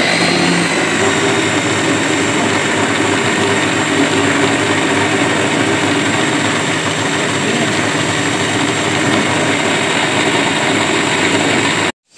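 Electric kitchen mixer grinder running at full speed: a loud, steady motor whir with the blades grinding. It cuts off suddenly just before the end.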